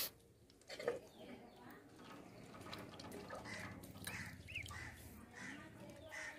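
Faint dabbling and small splashes as a duckling works its bill through the water in a shallow steel basin, with a few soft bird chirps scattered through.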